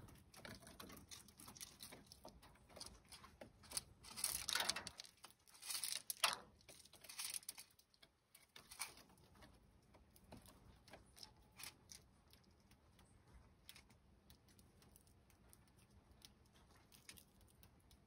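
Small bird feeding at a wooden platform feeder of sunflower seeds: faint scattered clicks and rustling of seeds and feet on the wood, with a louder spell of rustling about four to seven seconds in.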